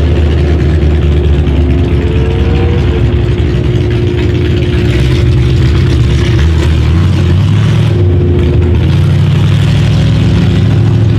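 Car engines idling steadily, a deep running hum whose pitch shifts slightly about two-thirds of the way through.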